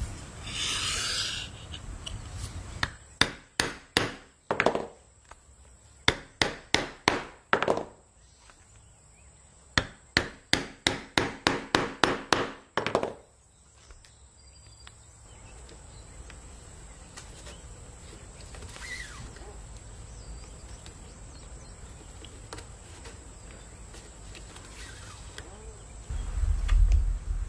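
Hand tapping with a hammer in three quick runs of sharp knocks, a few a second, followed by quieter handling noise. A low rumble comes in near the end.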